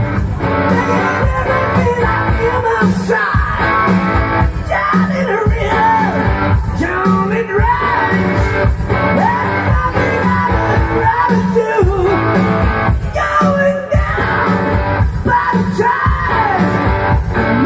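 Rock music with a singing voice over guitar and a steady beat.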